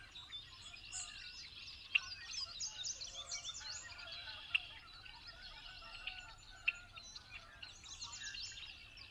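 Birds chirping and twittering: many short, quick calls overlap, fairly faint. Three sharp ticks stand out, at about two, four and a half, and nearly seven seconds in.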